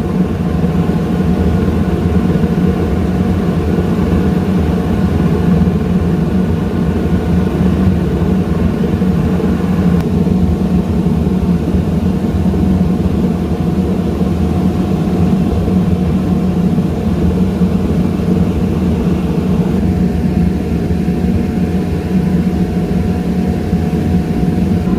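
Iron-melting furnace running steadily with its air blower, a loud continuous roar with a constant low hum.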